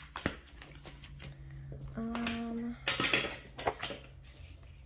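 Paper planner pages being handled and laid flat on a tabletop: a sharp click just after the start, then paper rustling and light knocks about three seconds in.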